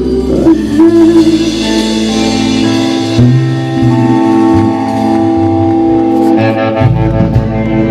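Live band music played loud, with held chords and shifting bass notes.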